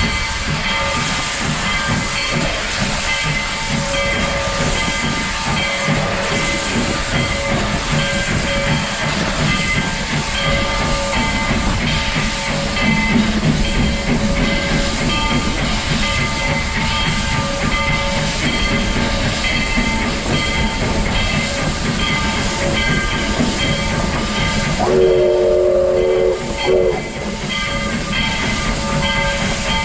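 Narrow-gauge steam locomotive No. 40 hissing steam as it stands ready to depart. About 25 seconds in it gives a short whistle blast, followed by a brief second toot.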